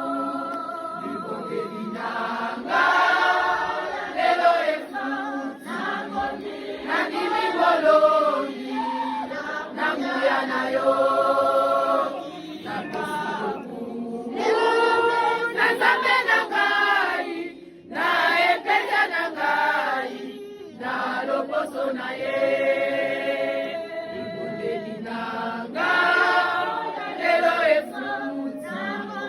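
A choir singing, many voices in long sung phrases.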